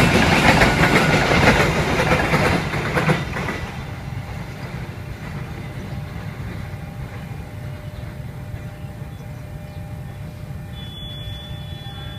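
Container freight train's flat wagons rolling past close by, wheels clacking over the rail joints. The noise drops sharply about three and a half seconds in as the last wagon clears, leaving a fainter steady rumble.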